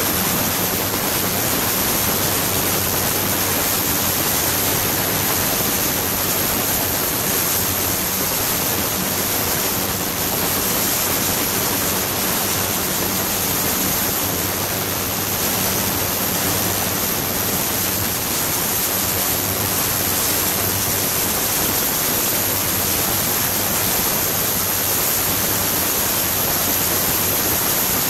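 Water running and churning in a stainless steel sink under a flowing-water ultrasonic cleaning system: a steady, even hiss with a faint high whine above it.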